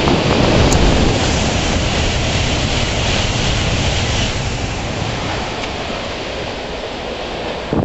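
Shinkansen bullet train rushing past at speed close by: a loud, even rush of air and wheel noise that starts suddenly and slowly fades, with a brief knock near the end.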